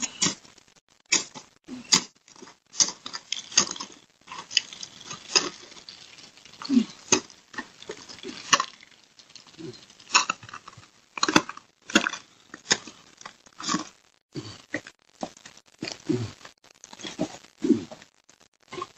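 Footsteps crunching and scraping on an icy, snow-covered driveway: an uneven run of sharp crackly steps, roughly one or two a second.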